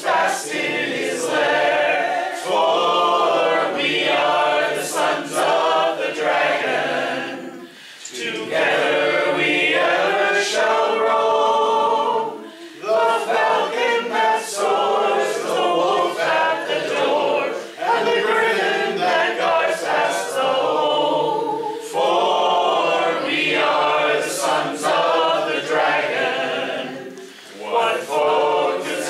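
A mixed group of men's and women's voices singing a song together a cappella, without instruments, in phrases with brief breaths between lines.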